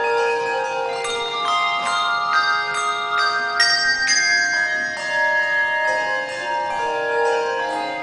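Handbell choir ringing a slow tune, with new bells struck about twice a second and their tones ringing on and overlapping.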